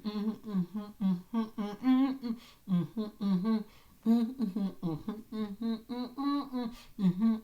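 A woman humming with closed lips in a quick run of short notes that rise and fall, the contented "mm" sounds of someone relishing what she is eating.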